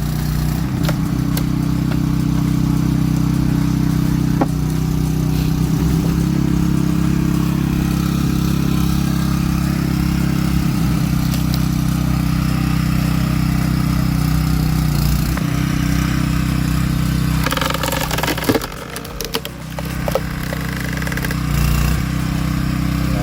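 An engine running steadily at a fairly even pitch, with a short dip in loudness about three-quarters of the way through.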